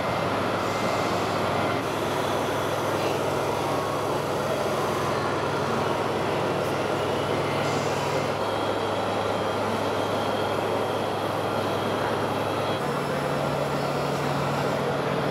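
Radio-controlled model truck running: a steady low engine-like drone over a constant hiss, with the drone shifting pitch about eight seconds in and again near the end.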